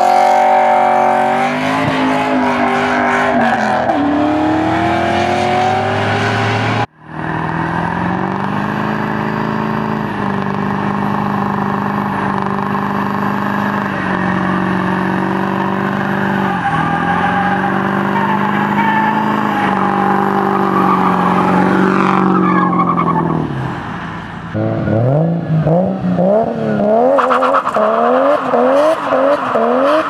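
Back-to-back burnouts: engines held at high revs while the rear tyres spin and squeal. First a car, then after a sudden cut a pickup truck's engine held at a steady high rev with small dips for about fifteen seconds. Near the end a BMW's engine swings rapidly up and down in revs as its rear tyres break loose.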